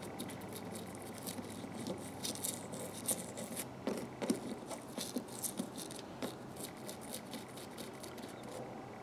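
A small brush scrubbing inside the head of a 1/4-inch ratchet in quick, irregular scratchy strokes against the metal, working loose old caked grease and dirt.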